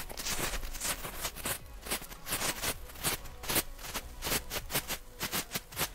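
Two small ground strobe fireworks flashing, each flash a sharp pop, making an irregular crackle of several pops a second.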